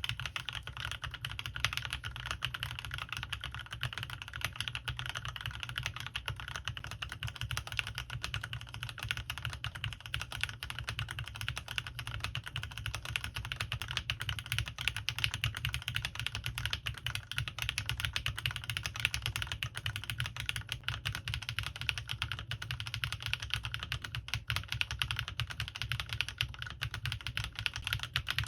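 Fast, continuous typing on a CannonKeys Rekt1800 mechanical keyboard with lubed linear switches, PBT keycaps and foam dampening: a dense, even stream of keystroke clacks without pauses.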